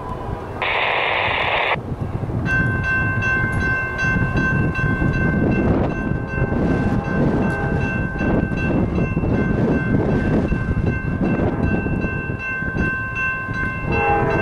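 Approaching Amtrak Cascades train: a low rumble throughout, a brief hiss about a second in, then a steady high ringing of several pitches with a fast regular tick, and the train's horn chord sounding near the end.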